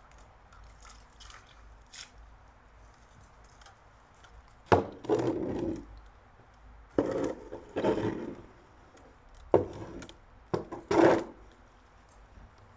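A shovel scraping along the yard ground and knocking as straw and manure are shovelled up, in about four strokes through the second half, each starting with a sharp knock and running into a short scrape.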